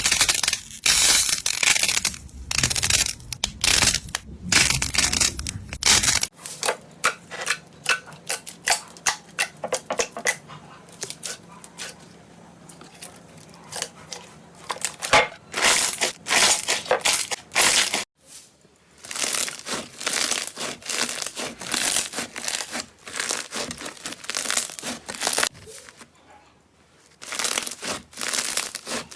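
Slime being squeezed and pressed, giving dense runs of crackling clicks and pops. The sound changes abruptly a little after six seconds and again about eighteen seconds in.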